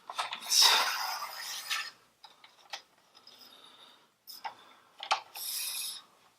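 Studio light stand being adjusted upward: two sliding, scraping runs of the metal stand sections with scattered clicks and knocks of the locking hardware between them.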